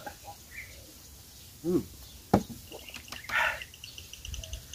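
Coffee sipped from mugs, with a sharp knock about halfway through as a mug is set down on the table. A bird chirps in a quick run of short, evenly spaced notes through the second half.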